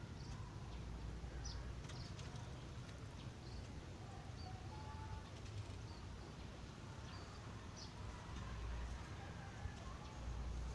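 Scattered short bird chirps and brief whistled calls over a steady low rumble of outdoor background noise.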